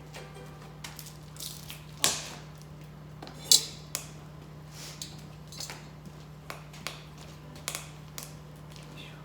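Scattered clicks, knocks and light clatters of objects being handled, with two louder knocks about two and three and a half seconds in, over a steady low hum.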